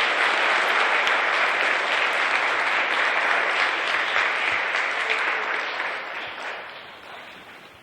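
Audience of schoolchildren applauding with many hands clapping, steady and loud, then dying away over the last couple of seconds.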